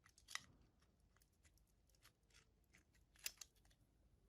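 Faint clicks and taps of a 5 mm LED and a CR2032 coin cell being handled and plugged into a 3D-printed PLA candle shell. The loudest clicks come about a third of a second in and as a quick pair about three seconds in.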